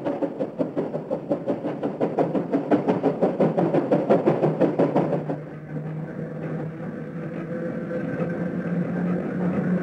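Steam locomotive working with rapid, evenly spaced exhaust chuffs. About five seconds in, this gives way to the steady hum of an electric train, rising slowly in pitch.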